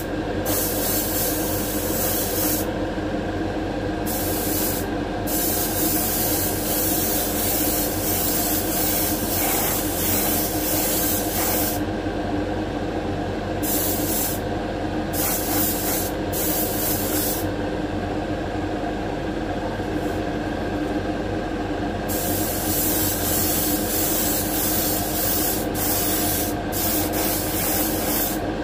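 Airbrush spraying paint in repeated bursts of hiss, some lasting several seconds, with short pauses between them, over a steady machine hum.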